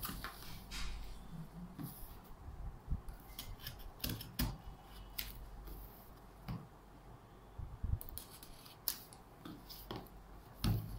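Cardboard router box being handled and its sealing tape cut open with a pen tip: irregular short scrapes, scratches and taps.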